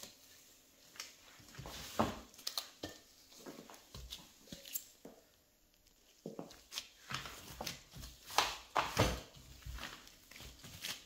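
Scattered, irregular soft taps and thumps of dough being handled and worked on a kitchen work surface, with a quieter stretch around the middle.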